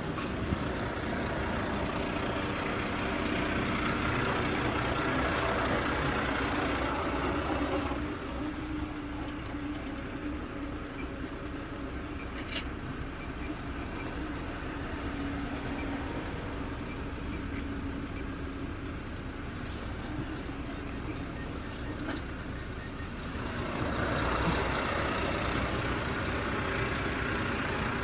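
A truck's engine running steadily, with a rushing hiss over it that fades about eight seconds in and returns near the end.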